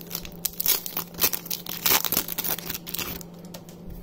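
A trading-card booster pack's foil wrapper being torn open and crinkled: a quick run of rips and crackles that stops about three seconds in.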